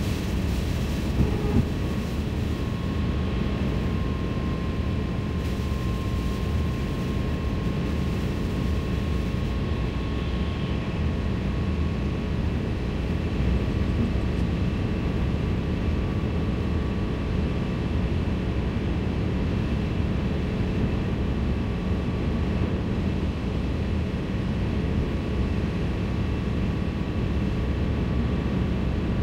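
Steady road and tyre noise of a car driving on a wet highway, heard from inside the cabin, mostly a low rumble with a faint steady whine above it. A couple of brief clicks come about a second in.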